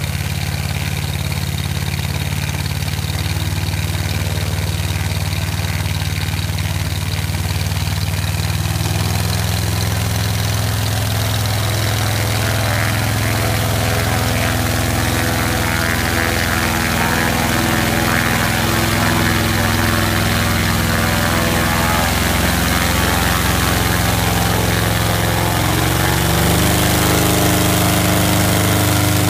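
SD-1 Minisport microlight's SE-33 engine running on a ground run-up, propeller turning. The engine runs steadily, then picks up speed about 26 seconds in.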